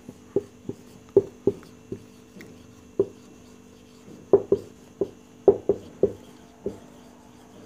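Marker pen writing on a whiteboard: a string of about a dozen short, irregular taps and squeaks as the letters are stroked out.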